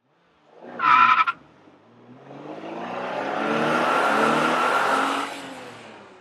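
A short, loud tyre squeal about a second in, then a car engine revving up with rising pitch, swelling and fading away near the end.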